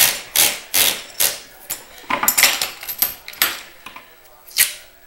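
Masking tape peeling off the roll in short rasping pulls as it is wound onto a rod blank to build a reel-seat arbor. About two and a half pulls a second at first, then slower and uneven, with a last loud pull near the end.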